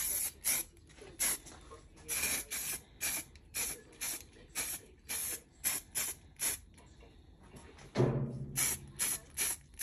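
Aerosol spray-paint can hissing in short bursts, roughly two a second, with a pause around seven seconds in. A brief low thump comes about eight seconds in.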